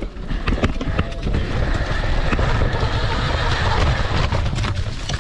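Dirt bike ridden over roots and leaf litter: a steady low rumble of wind and tyres, broken by many short rattling knocks from the bike bouncing over rough ground.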